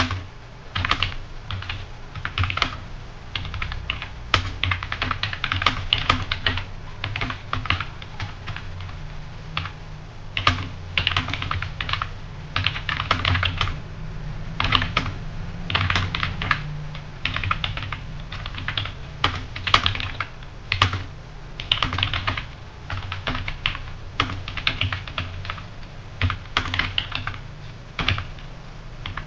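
Computer keyboard being typed on quickly and without pause, keys clicking in irregular runs, during a timed typing-speed test. A steady low hum runs underneath.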